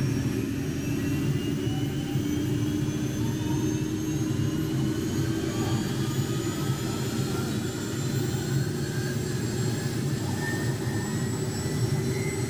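Small two-bladed helicopter running on the pad with its main and tail rotors turning: a steady engine-and-rotor hum with a faint high whine, both slowly rising in pitch as it spools up.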